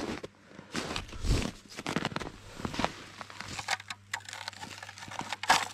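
Boots crunching and scuffing through deep snow in irregular steps, with a sharper crunch near the end.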